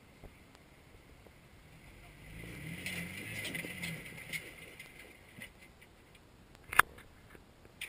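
Off-road Jeep crawling over rocks: its engine runs up for a couple of seconds, with tyres grinding and crunching on rock and gravel, then a single sharp knock near the end.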